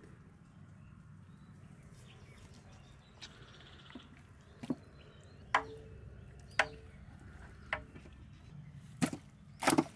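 A series of sharp knocks over a steady low rumble. Two of the knocks, about a second apart midway, ring briefly, and the loudest come close together near the end.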